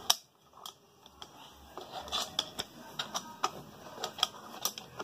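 Light metallic clicks and taps of a Comet APS 41 diaphragm pump being worked by hand, its piston moving a newly fitted rubber diaphragm. There is one sharp click at the start, then a pause of about a second and a half, then a run of irregular clicks, several a second.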